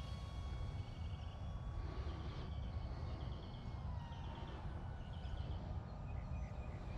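Thin, distant whine of the mini flying wing's electric motor and propeller, its pitch drifting down about four seconds in, under a steady low rumble. A bird repeats quick runs of short high chirps about once a second.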